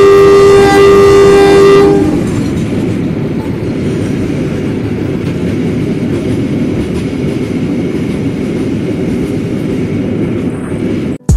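A KAI diesel locomotive's horn sounds a loud, steady chord that stops about two seconds in. A long freight train of hopper wagons then rumbles steadily past on the rails. The sound cuts off suddenly near the end.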